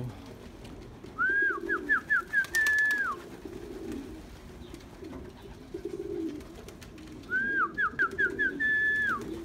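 Domestic pigeons cooing low and steadily, with a clear whistled phrase heard twice about six seconds apart: a quick run of four or five short notes, then a longer held note that drops off at the end.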